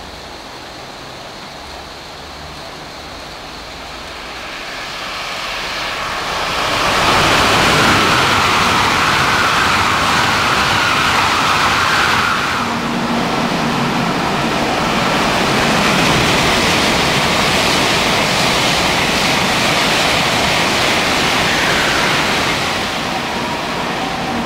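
Shinkansen bullet train passing through a station at speed: a rushing noise of air and wheels that builds over a few seconds, then holds loud for about fifteen seconds. A high whine rides on it during the first five seconds.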